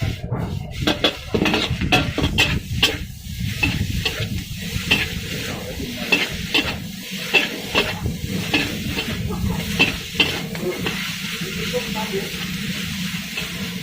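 Fried rice being stir-fried in a wok: a metal spatula scrapes and clatters against the pan about twice a second over a steady sizzle of hot oil. The strokes ease off after about ten seconds, leaving mostly the sizzle.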